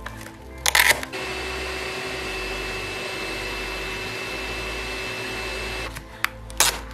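Wood lathe running steadily while sandpaper is held to the spinning wooden workpiece. It is broken twice, about a second in and near the end, by short, loud rips of abrasive paper being torn from a roll.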